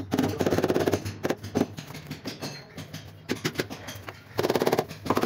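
A mallet tapping the face of a ceramic wall tile to bed it into the mortar: a quick run of taps, then scattered single knocks, then another quick run near the end.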